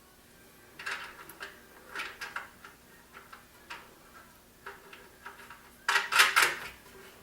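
Knocks and clatter of table-repair parts being handled and fitted together, in short scattered groups, with the loudest cluster about six seconds in.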